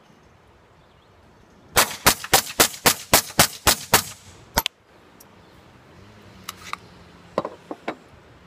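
Suppressed .22 LR semi-automatic pistol, a Ruger Mark III 22/45 with an SWR Warlock 2 suppressor, fired rapidly: about nine shots at roughly four a second, then one more shot after a short pause. A few much fainter clicks follow later.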